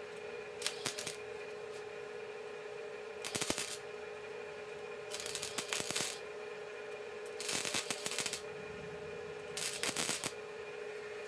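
Welder arcing in five short crackling bursts, each a second or less and about two seconds apart, filling trim holes in a sheet-steel body panel with weld. A steady hum runs underneath.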